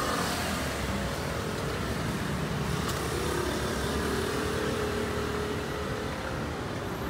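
Steady city road traffic, with motor vehicles running past; a faint engine hum stands out from about three to six seconds in.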